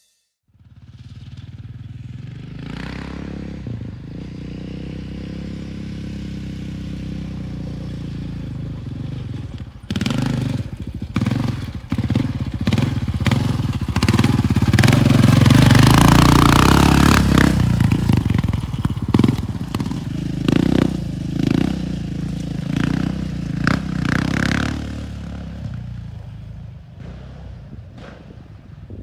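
Yamaha Raptor 700 quad's single-cylinder four-stroke engine being ridden. It runs steadily at first, then is revved harder and unevenly, loudest about halfway through, and fades away near the end.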